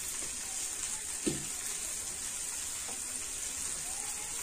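Shallots and turkey berries sautéing in an aluminium kadai: a steady frying sizzle, with one brief low sound about a second in.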